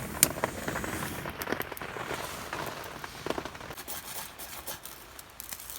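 Campfire crackling as it catches, with irregular sharp snaps over a soft hiss, thinning out towards the end.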